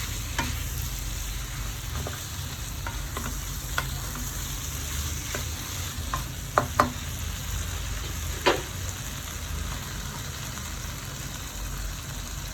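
Marinated chicken frying in a pan with a steady sizzle while it is stirred and turned, the utensil clicking and scraping against the pan now and then, loudest twice in quick succession about two-thirds of the way through and once more shortly after.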